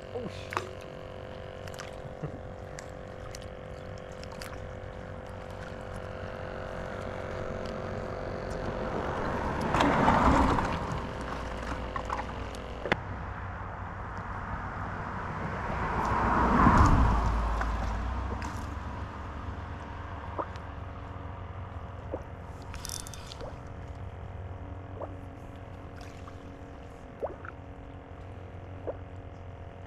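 Two passing vehicles, each swelling and fading, the first peaking about ten seconds in and the second about seventeen seconds in, over a steady low hum with scattered small clicks.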